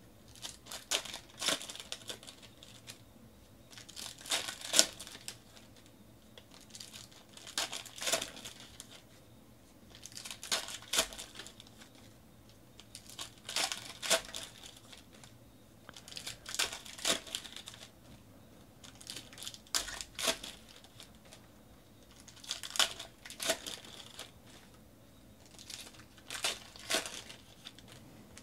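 Plastic wrappers of Panini NBA Hoops basketball card packs being torn open and crinkled by hand, one pack after another. Each pack gives a short cluster of sharp crackles, about every three seconds, nine times in all.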